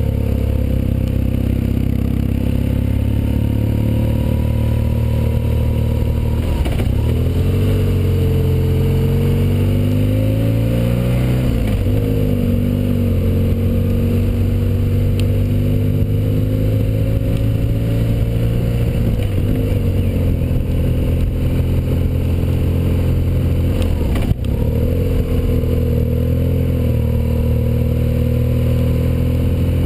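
BMW R1200GS boxer-twin engine running on the move, its note dipping sharply and climbing again about four times as the rider eases off and gets back on the throttle.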